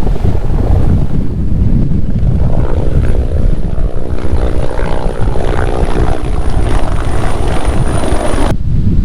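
Firefighting helicopter flying over, its engine and rotor note rising through the middle and a thin high turbine whine on top, under heavy wind rumble on the microphone. The sound cuts off abruptly near the end.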